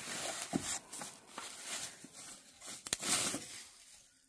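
Plastic bubble-wrap packing rustling and crinkling as it is pulled off a box, in irregular bursts, with a sharp click about three seconds in.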